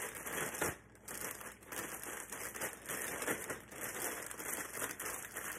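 Ziploc plastic bag full of sliced vegetables being kneaded and turned by hand to mix them. The plastic crinkles and the pieces inside rustle irregularly.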